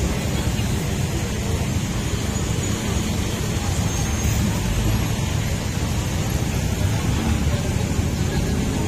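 Steady city street noise: a continuous low traffic rumble with no distinct events.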